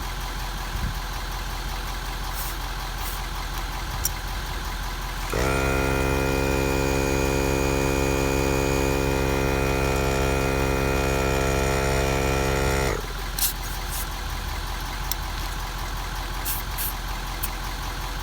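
A Viair 400P portable 12-volt air compressor inflating a truck tire starts about five seconds in, runs steadily for about seven and a half seconds, and cuts off abruptly. Underneath it is a steady low engine idle hum, with a few short clicks before and after.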